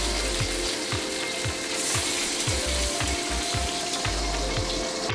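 Pork meatballs sizzling as they sear in oil in a round-bottom wok, over lo-fi background music with a steady beat.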